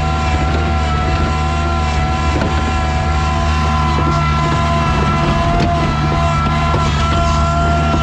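Engine running steadily at a constant speed, with a steady high-pitched whine over its hum.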